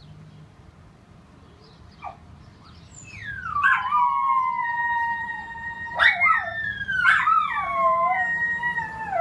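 Miniature schnauzers howling together, starting about three seconds in. Each long howl slides down in pitch and then holds, with more voices joining and overlapping a few seconds later.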